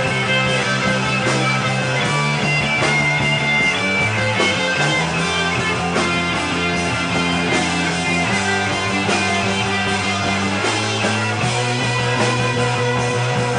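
Rock band playing live: electric guitars over a bass guitar holding long notes that change every second or two, with steady drum hits.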